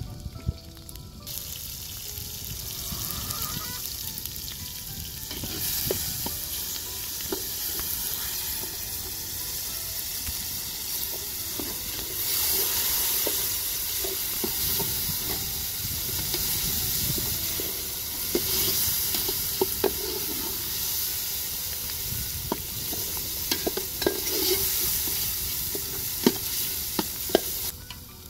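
Vegetables sizzling as they fry in oil in an aluminium pot, with a metal spoon stirring and clicking against the pot. The sizzle starts about a second in and cuts off just before the end.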